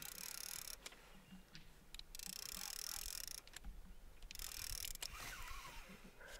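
Spinning reel buzzing in a few short bursts, each about a second long, while a hooked lake trout is played on a bent rod: the drag is letting out line as the fish runs.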